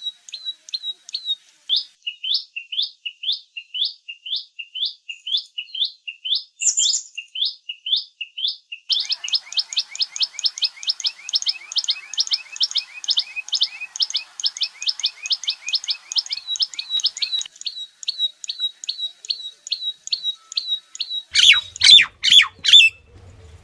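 A tailorbird calling: short, sharp chirps repeated in a steady series, about two a second at first, then about four a second from around nine seconds in, then slower again. A few louder, harsher calls come near the end.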